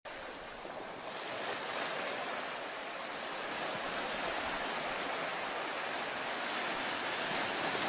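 Steady rushing water noise that grows a little louder.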